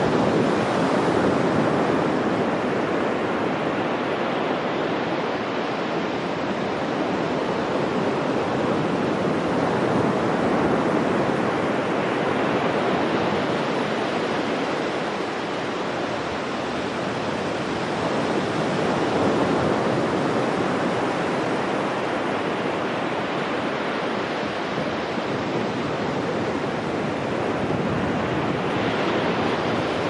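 Ocean surf breaking on a sandy beach: a continuous wash of waves that swells and eases about every ten seconds.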